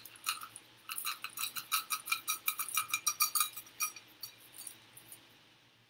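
Chocolate chips shaken out of a stainless steel measuring cup into a foil-lined baking pan: a rapid run of small clinks with a metallic ring from the cup, thinning out and stopping about four seconds in.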